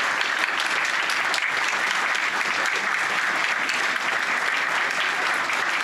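Audience applauding, dense and steady.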